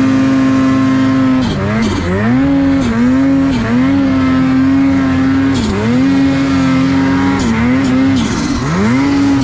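Ski-Doo 850 Turbo snowmobile's two-stroke twin engine held at high revs while ploughing through deep powder. Its pitch drops and climbs back about six times as the throttle is eased and reapplied.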